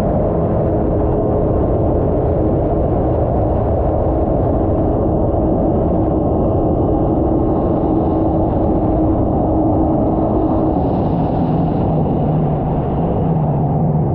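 Stand-up jet skis running at full throttle across the water: a loud, steady engine drone over the rush of water and wind.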